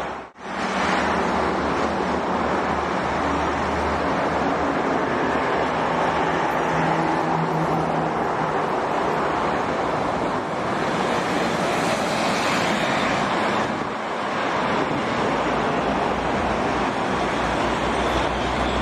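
Heavy toll-road traffic going past: a steady noise of tyres and engines from cars and trucks, with a low engine drone from the passing trucks. The sound cuts out briefly just after the start.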